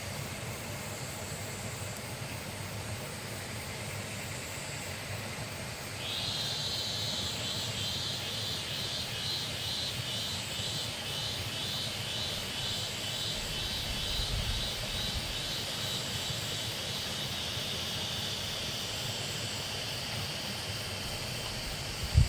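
Steady droning hum of a giant honeybee colony massed on an open, hanging comb. About six seconds in, a high insect trill joins it, pulsing rapidly and evenly. A single sharp knock comes at the very end.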